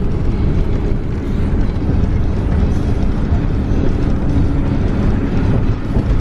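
Steady road noise inside a moving camper van, mostly low-pitched, from the tyres and engine at highway speed.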